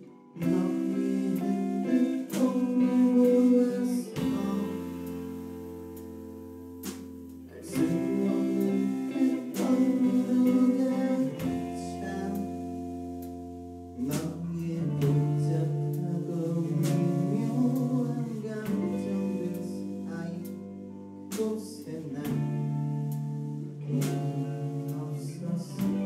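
Live indie rock band playing a song: electric guitar over long held low bass notes, with a man singing into the microphone at times.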